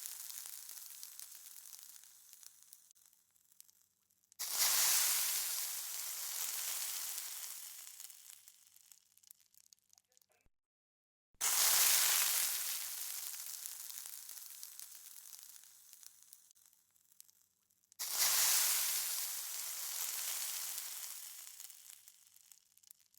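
Sound-effect bursts of bright hissing noise, each starting suddenly and fading away over about five to six seconds; the tail of one fades out, then three more hit about seven seconds apart.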